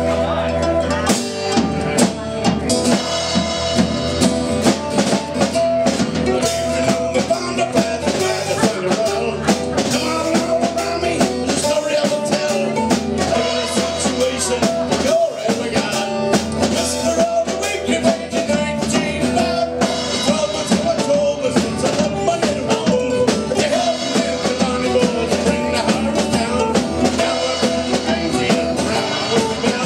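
Live band playing a rock song: acoustic and electric guitars over a drum kit, steady and loud throughout.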